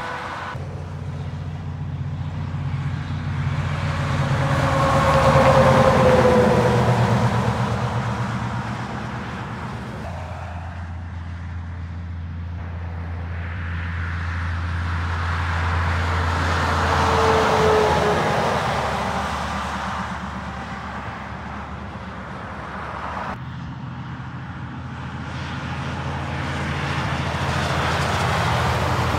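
Heavy trucks passing one after another on a motorway, each swelling up and fading away, with a tyre and engine whine that drops in pitch as it goes by. The two loudest passes come about five and seventeen seconds in, and another builds near the end, over a low engine hum.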